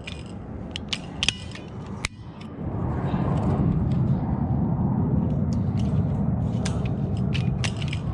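A hand cable-tie tensioning tool clicking as it is squeezed to tighten a plastic zip tie around the sensor cable on a chain-link fence, with a single sharp snap about two seconds in as the tool cuts the tie. A steady low rumble sets in just before the three-second mark and continues.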